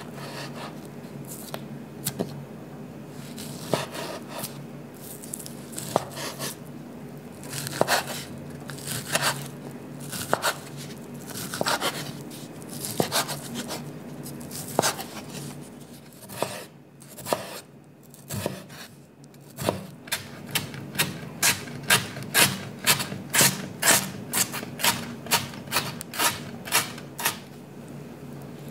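Chef's knife cutting ham on a bamboo cutting board. The blade scrapes and knocks on the wood in an uneven run of slices, then chops quickly and evenly, about two strokes a second, in the second half.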